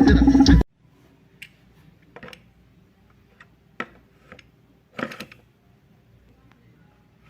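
Loud music cuts off suddenly about half a second in. What follows is quiet with a faint low hum, broken by a handful of scattered small clicks and taps.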